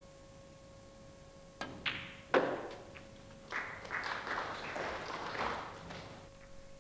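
Snooker cue striking the cue ball, then a sharp clack of balls colliding, the loudest sound, about two and a half seconds in. Audience applause follows for about three seconds and fades away.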